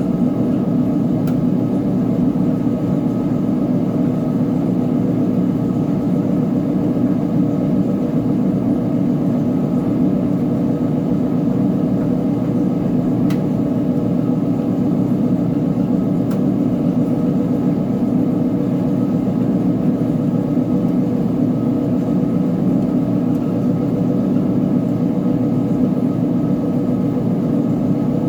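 Uni-Mac UniMat 35 commercial front-load washing machine running with a steady hum, with a few faint clicks.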